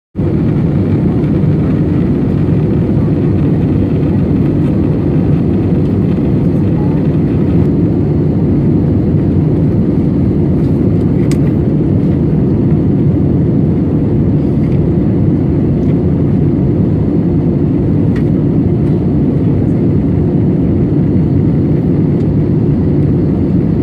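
Steady, loud low rumble of an Airbus A320-200 in flight, engine and airflow noise as heard inside the cabin, with a couple of faint clicks.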